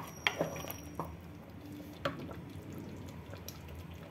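A spatula stirring thick, wet gravy with soft roti pieces in an aluminium pressure cooker, with wet squelching and a few light clicks of the spatula against the pot.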